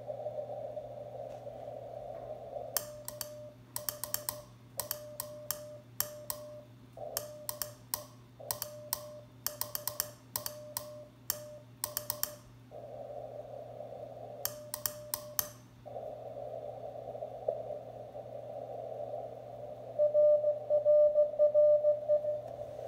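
Morse code keyed on a hand Morse key into a ham transceiver: sharp mechanical clicks of the key with the radio's steady sidetone beeps between them. Between sending runs the receiver gives a steady, narrow hiss. Near the end comes a louder, choppy run of Morse beeps at the same pitch, with no key clicks.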